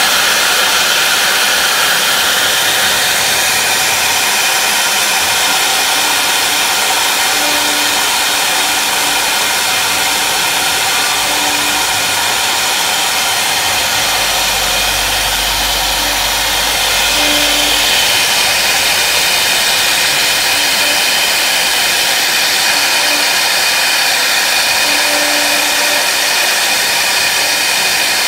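CNC router's spindle running at high speed and cutting into a wood board: a steady, loud whine and rush of cutting noise, with short low hums now and then as the head moves.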